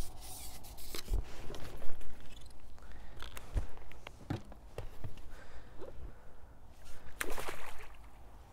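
Handling noise from pole-fishing tackle while a fish is played and landed: scattered knocks, clicks and rustles, with two dull thumps in the first few seconds and a longer rustle near the end.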